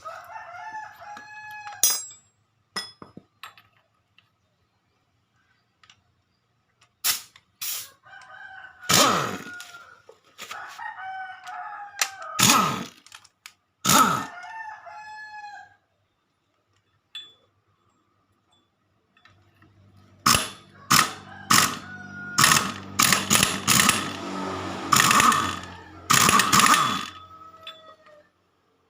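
A rooster crowing several times, mixed with sharp clicks and knocks. In the latter part a steady low hum runs beneath them.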